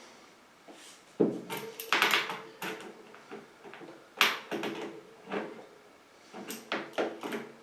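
Irregular clunks and clicks of metal hand tools being handled while tightening a bicycle wheel's spoke, several knocks followed by a brief ring.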